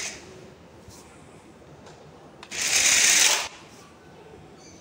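Gesture-controlled RC stunt car's electric motors and roller wheels whirring in one burst of about a second, a little past halfway, as it drives off across the hard tile floor.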